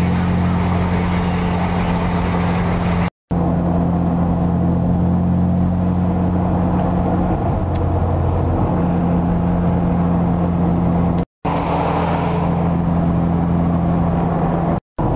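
Car engine droning steadily at highway cruising speed with tyre and wind noise, heard from inside a moving car. About halfway through the hum shifts briefly, and the sound drops out three times for a split second.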